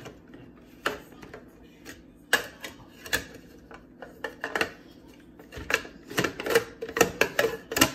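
Kitchen utensils and gadgets clattering: scattered sharp clicks and clacks that come faster and bunch together over the last couple of seconds.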